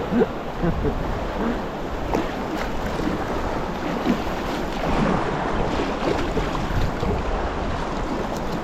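River water rushing and splashing around a small inflatable raft, with wind noise on the microphone.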